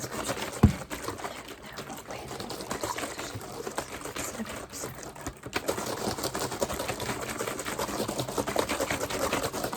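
Rapid, dense clicking and crackling close to the microphone, with one low thump just over half a second in.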